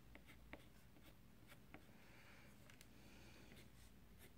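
Faint scratching of a green wax crayon on paper in short strokes, pressed down hard to draw grass tufts, with a few light ticks as the crayon tip meets the page.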